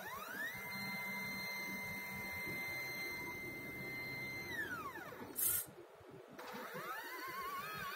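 Nema 17 stepper motors of a homemade GRBL pen plotter driving its lead-screw axes. The whine rises in pitch as the axis speeds up, holds steady for about four seconds, then falls as it slows. A short loud buzz comes between moves, and then another move rises in pitch and warbles up and down as the pen follows a curving line.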